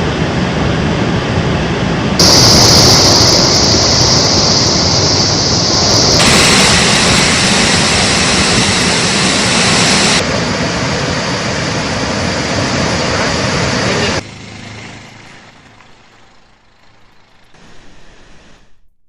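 Flood water rushing through the raised crest gates of the Srisailam dam spillway: a loud, steady rush of water that changes level abruptly a few times. It drops to a much quieter rush about fourteen seconds in.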